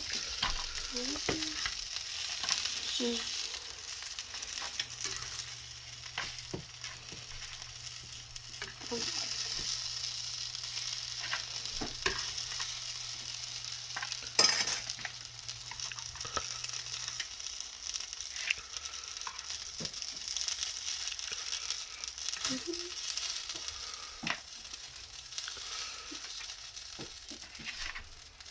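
Dumplings sizzling as they fry in oil in a pan, a steady hiss, with frequent short clicks of a cooking utensil against the pan, one louder knock about halfway through.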